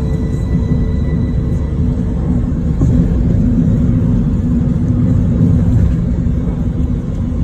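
Steady low road rumble inside a moving car's cabin.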